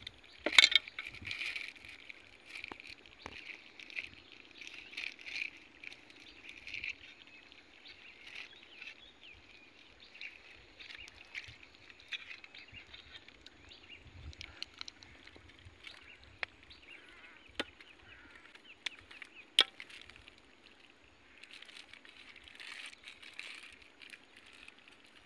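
Handling noises: scattered sharp clicks and taps, with on-and-off rustling, as a mud crab is handled with a plastic bag and a hooked crab-catching rod.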